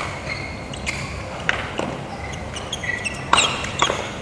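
Badminton rally: a string of sharp racket smacks on the shuttlecock, about five in a few seconds, the loudest a little over three seconds in, with short squeaks of court shoes on the floor between the hits.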